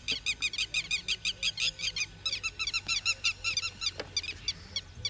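A bird calling a fast, even run of repeated nasal notes, about eight a second, going on without a break.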